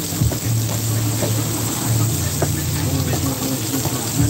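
Sausage and chicken sizzling on an electric griddle, with a metal spatula scraping and tapping on the cooking surface several times, over a steady low hum.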